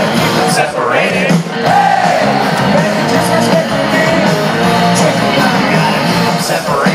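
Punk rock band playing live through a festival sound system, with electric guitars, bass and drums under a sung lead vocal, heard loud from within the crowd.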